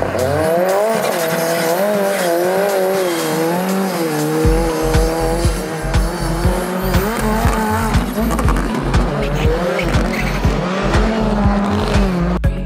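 Rally car engine revving hard, its pitch rising and falling as it is driven on the ice. Background music with a steady beat comes in about four and a half seconds in and carries on underneath.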